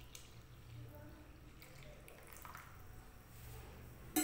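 The last of a pour of full cream milk trickling and dripping into an aluminium kadhai of grated carrots, faint. A sharp knock about four seconds in.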